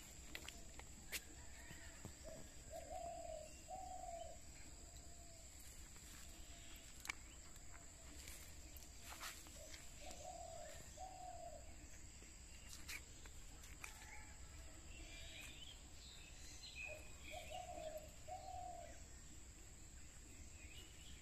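A bird giving a low two-note call, three times about seven seconds apart, over a faint steady high-pitched insect buzz. A few sharp clicks sound now and then.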